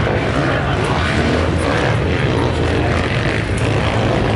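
Motocross bike engines running and revving on the track, a steady mix of several bikes at once.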